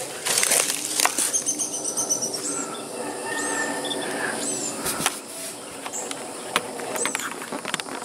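Footsteps and rustling in leaf litter for the first second or so, then a small bird calling: a quick run of high notes about a second in, followed by short high chirps every couple of seconds.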